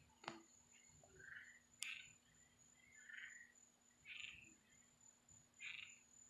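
Faint night sounds: frogs giving about five short calls, a second or so apart, over a thin steady high-pitched tone, with a couple of faint clicks.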